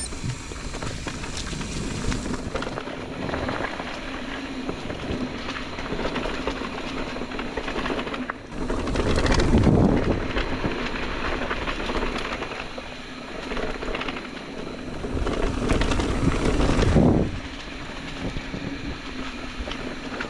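Electric mountain bike riding along a dirt singletrack: tyres rolling over packed dirt and fallen leaves with a steady rushing noise, which swells louder twice, about eight and a half seconds in and again around fifteen to seventeen seconds.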